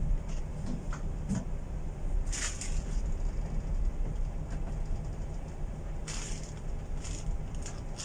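Steady low rumble aboard a tanker underway in a rough sea, with a few brief hissing bursts about two and a half and six seconds in.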